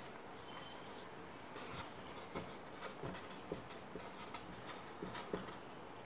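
Dry-erase marker scratching and squeaking faintly on a whiteboard in short strokes, as boxes and a word are drawn.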